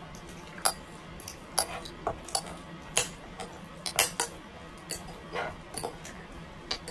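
Metal spoon and fork clinking and tapping against a plate while eating, about ten sharp, irregular clinks.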